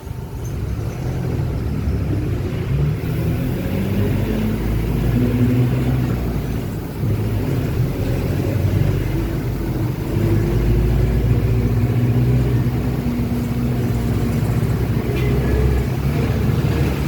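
Agrale MA 15.0 midibus under way, heard from the passenger cabin: a deep engine and driveline rumble, with whining tones that drift up and down with road speed. This is the differential howling very loud.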